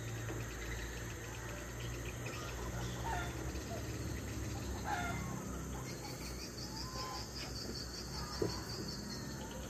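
Insects chirring in a fast, even pulse, with a few short bird chirps now and then.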